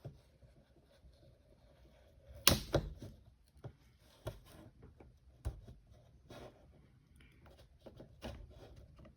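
Scattered small clicks and taps of plastic pry picks working around the edge of an iPhone SE screen, with the sharpest click about two and a half seconds in. The little cracks are typical of the screen adhesive giving way.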